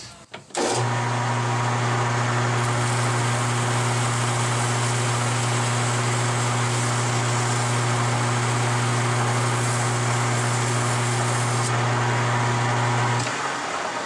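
Metal lathe switched on and running steadily with a low hum, while hand-held sandpaper is pressed against a small bearing adapter spinning on a rubber drum-sander arbor, adding a hiss. The motor switches off about a second before the end and the chuck runs down.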